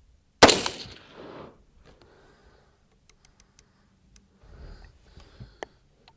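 A single rifle shot from a bench-rested, scoped AR-style rifle about half a second in, sharp and loud, with a trailing echo dying away over about a second. A few faint clicks and rustles follow.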